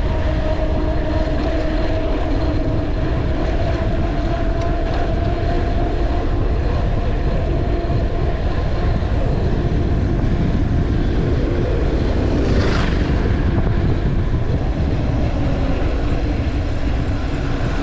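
Wind rushing over the microphone and tyre noise from a mountain bike coasting fast downhill on tarmac, with a steady hum running underneath. A brief swish comes about thirteen seconds in.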